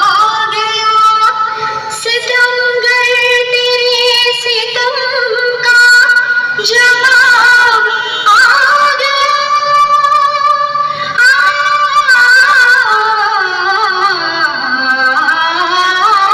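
Music: a Hindi song with a high female voice holding long, wavering sung notes, over a band backing with a few sharp drum hits.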